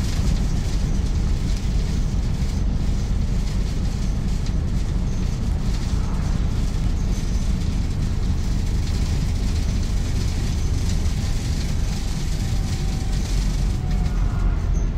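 Inside a moving Volvo B5TL / Wright Gemini 3 double-deck bus: a steady low rumble of engine and road, with frequent small rattles from the cabin fittings.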